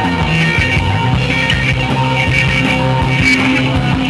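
Live rock band playing, with an electric guitar being picked over the full band.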